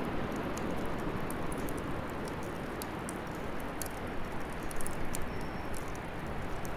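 Wood fire burning in a bonfire stand: a steady rushing noise with scattered small crackles and a few louder snaps around the middle.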